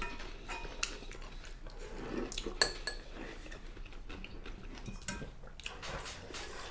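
Metal serving spoon clinking and scraping in a stainless steel pot as food is scooped out, with scattered light clicks of cutlery on dishes and one short ringing clink.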